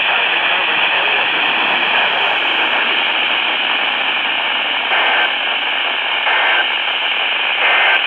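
Weather radio receiver on a weak 162.425 MHz NOAA Weather Radio signal, heard as steady FM static hiss. Near the end come three short data bursts about 1.3 s apart, the pattern of EAS end-of-message tones closing the alert.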